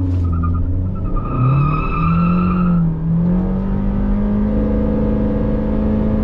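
Remapped Honda Civic 1.5-litre turbo four-cylinder with CVT launching hard from a brake-held standstill. The engine note climbs, dips briefly about three seconds in, then holds a near-steady drone that rises only slowly as the CVT keeps revs up while the car gathers speed. A high whine sits over the engine during the first few seconds.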